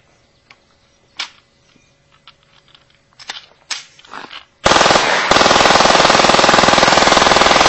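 Fully automatic Glock 17 pistol firing: a short burst about four and a half seconds in, a brief break, then a long continuous stream of very rapid shots. A few faint clicks come before the firing.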